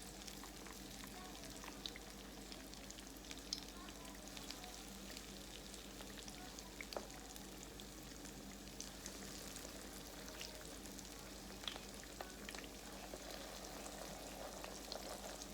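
Croquettes frying in grease in a pan: a faint, steady sizzle with scattered crackles and a few sharper pops or clicks.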